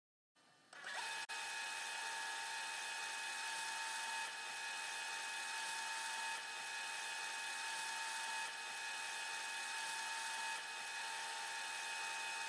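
Steady high-pitched electronic whine of several fixed tones over an even hiss, starting about a second in, with no low engine sound beneath it: the camera's own electronic self-noise.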